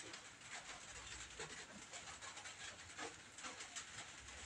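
Faint rustling and light, irregular ticks of fingers untwisting and straightening the thin insulated wires of a LAN cable's twisted pairs.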